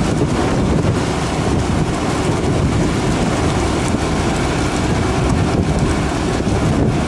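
Steady low rumble of a fishing trawler's engine and deck machinery, mixed with wind buffeting the microphone.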